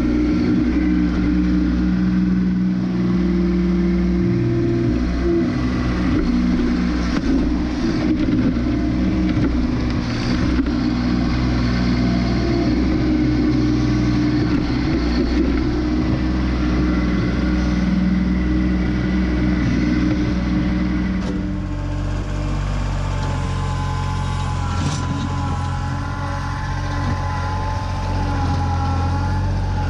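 Kubota B2601 compact tractor's three-cylinder diesel engine running steadily under load while the front-loader stump bucket digs out a stump. The engine sound changes abruptly about two-thirds of the way through.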